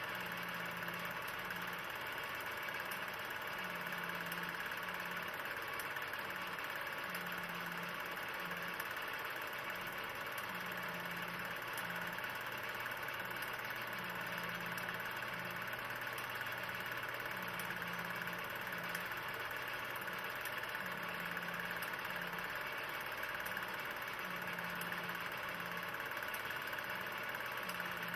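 16 mm film projector running: a steady mechanical whir and hiss, with a low hum that swells and fades in a repeating pattern about every three and a half seconds.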